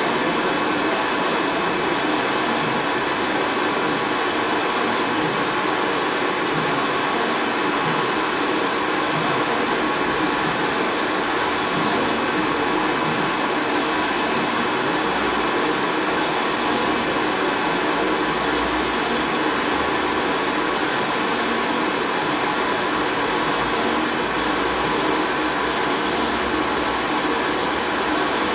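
UV flatbed inkjet printer running while printing on a large clear plastic sheet: a loud, steady mechanical whir and hiss as the print-head carriage travels, with a thin steady tone and a regular pulsing in the high hiss.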